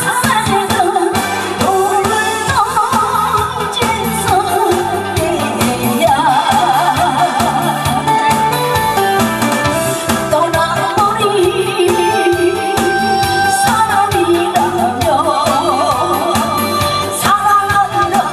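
A woman singing live into a microphone with a wide vibrato, over a backing track with a steady beat.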